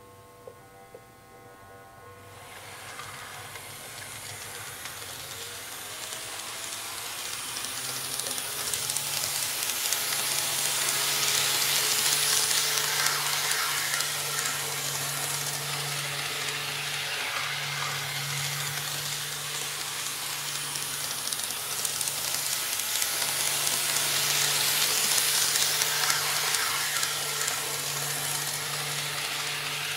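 N-scale KATO Kiha 58 model railcar running on KATO Unitrack laid over two layers of soft sound-insulating sheet: a steady rolling hiss and rattle of wheels on rail with a low motor hum. It starts with a click or two from the controller knob, builds as the train gets up speed, and swells twice as it passes the microphone.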